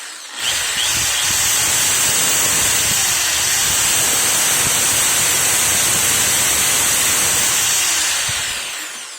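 A new INGCO corded power tool's electric motor being test-run: it starts about half a second in, runs steadily at full speed with a high whine and hiss, then spins down near the end.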